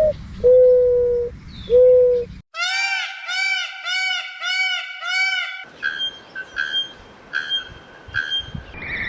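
Three different birds calling in turn: first long, level, low hooting notes; then a fast run of arched whistled notes, about two a second; then a series of short repeated higher calls.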